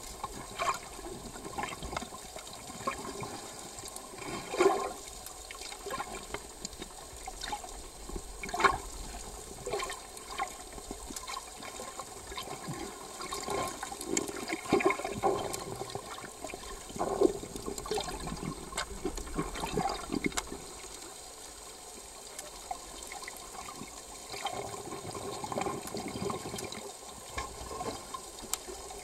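Water gurgling and sloshing as heard by a microphone held underwater, in irregular surges a few seconds apart over a steady hiss.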